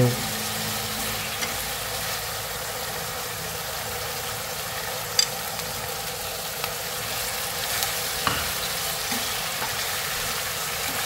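Fish-sauce glaze sizzling steadily in a nonstick wok while fish balls, sausage and okra are stir-fried with wooden chopsticks, and water spinach is tipped in partway through. A couple of sharp clicks, about five and eight seconds in.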